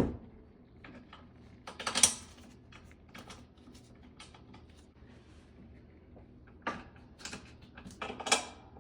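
Small clicks and taps of screws and metal parts being handled and fitted by hand, with a sharp knock at the very start and clusters of clicks about two seconds in and near the end.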